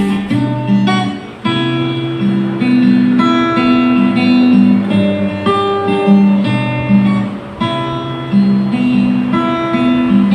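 Instrumental break of a karaoke backing track played through a wireless karaoke speaker: guitar-led music with held chords, no singing.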